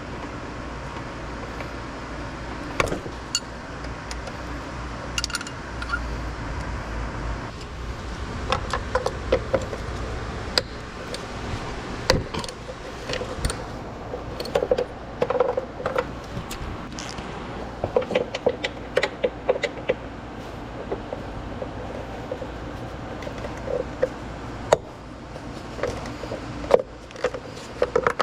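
Hand tools clinking, clicking and tapping on metal parts in irregular bursts, some strikes ringing briefly, over a steady low hum.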